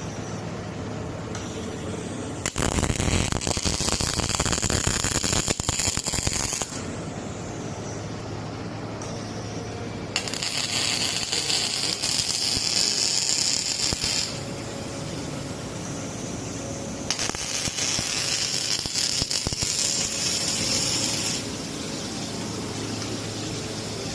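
MIG welding robot laying weld beads: the arc crackles and spatters in three runs of about four seconds each, with a steady machine hum between the runs.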